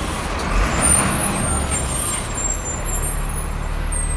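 A school bus running as it drives and slows, its engine a steady low rumble, with high-pitched brake squeals coming and going, mostly in the first half and again near the end.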